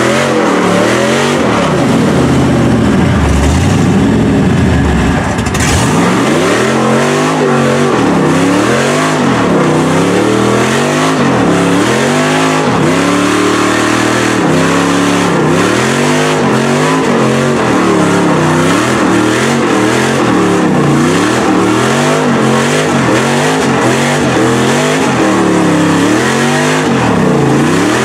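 LS V8 of a lifted Chevy Silverado mud truck revving hard as the tyres spin and churn through deep mud. It holds high revs for a few seconds about two seconds in, then is revved up and down over and over, about once a second.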